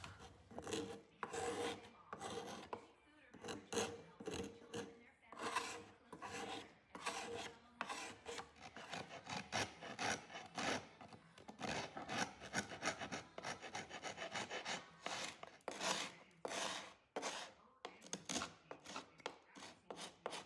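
Hand scraper scraping old glue off the wood inside an early-1800s clock case, in quick short strokes that come in bursts with brief pauses between them.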